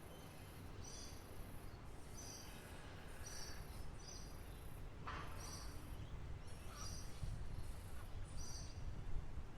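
A bird repeating a short, high chirp roughly once a second over a steady low background rumble, with another, louder call about halfway through.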